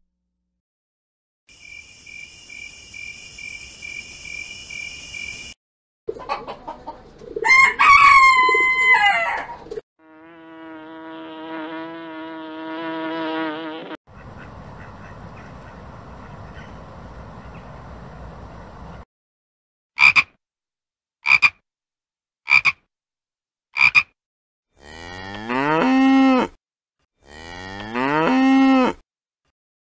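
A string of separate animal-call clips with short silences between them: high steady trilling, sliding squeals, a pitched cry, then four short sharp calls about a second apart. Near the end come two long moos from cattle, each rising and then falling.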